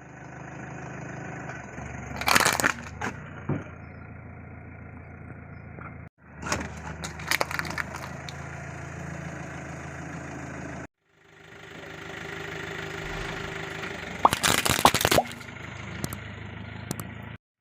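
A car engine running slowly under load, broken into three short clips by sudden cuts; in each, a cluster of sharp cracks and crunches as the car's tyre rolls over and crushes objects.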